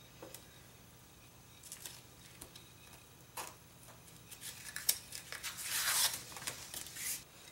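Handling noise from a glitter-vinyl-covered ribbon being pressed flat, then lifted, unfolded and slid across a plastic placement mat: scattered soft taps and rustles, busiest from about five to seven seconds in.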